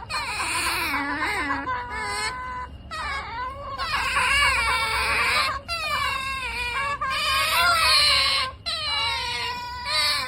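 Pet otters calling: a string of high-pitched, wavering calls, one after another with short breaks between them.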